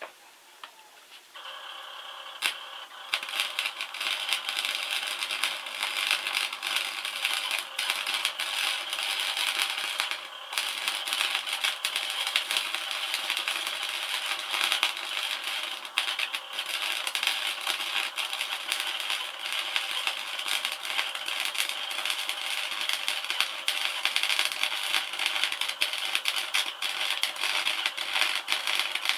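MIG welding arc crackling and spitting continuously as a weld is run, starting about three seconds in, with one short break around ten seconds.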